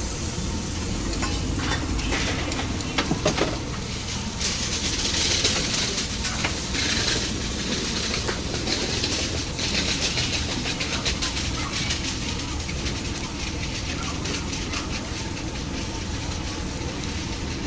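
Chicken skewers sizzling on an open-flame grill, a steady hiss that swells for a few seconds partway through, with scattered clicks and a low rumble underneath.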